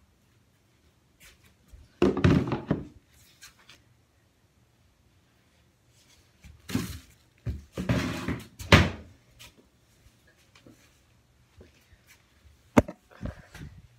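Dull thumps and bumps in a small tiled room, in a short bout about two seconds in and a longer one around seven to nine seconds, then a single sharp knock near the end, over a faint steady low hum.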